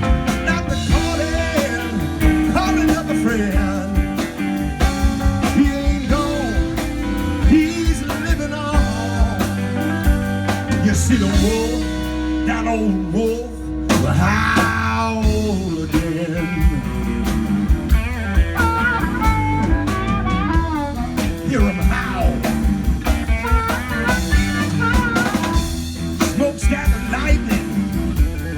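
Live electric blues band playing an instrumental break: drum kit and bass keep the groove under a lead line of bending notes. The band drops back briefly about halfway through.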